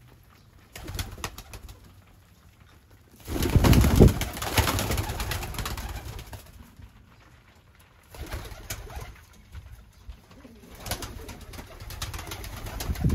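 Tippler pigeons cooing, with several louder noisy bursts among them, the loudest lasting from about three to six seconds in.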